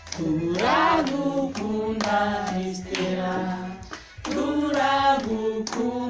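A small group of people singing together, with hand claps keeping time.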